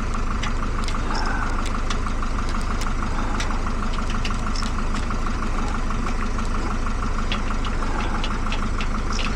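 A steady machine drone with a fast, even pulse, with light clicks and taps scattered over it.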